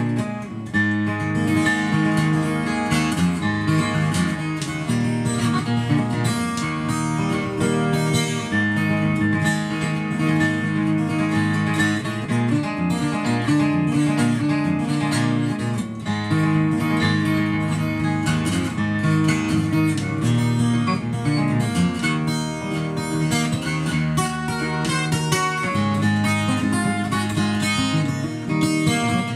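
Twelve-string acoustic guitar, a Lakewood J-32-12 Custom tuned a half step down, fingerpicked solo in a continuous run of bass and treble notes.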